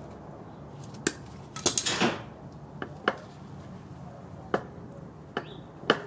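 Sharp clicks and light metallic clatter of pliers and small parts handled against an aluminium intake manifold, with a short rattle about two seconds in.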